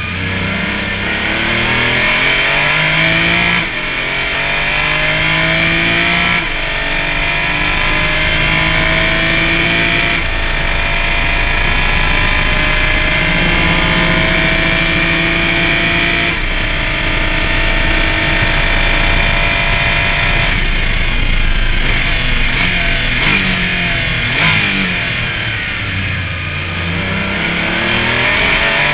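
Porsche Cayman race car's engine at full throttle, its pitch climbing through several upshifts, then dropping through a run of quick downshifts near the end as the car brakes for a corner.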